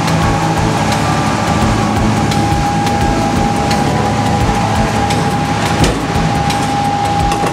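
Steady mechanical hum of a delivery lorry's machinery at a loading dock, with a constant mid-pitched whine and scattered light clicks and knocks as a loaded pallet is rolled out of the trailer.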